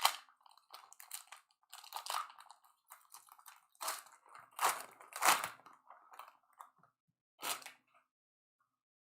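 Trading card pack being opened by hand: its wrapper crinkling and tearing and the cards being handled, in irregular bursts that stop about eight seconds in.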